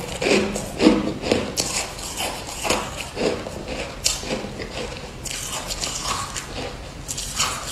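Close-up crunching and chewing of frosty white ice balls in the mouth. The crunches come irregularly and are strongest in the first second and a half.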